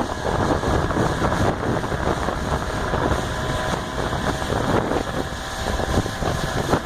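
Johnson 25 HP outboard motor running as the small boat moves along, nearly covered by heavy wind noise on the microphone.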